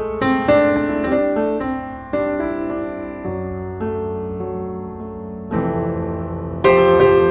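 Piano music: a gentle melody of struck notes over held chords and bass notes, with a louder chord near the end.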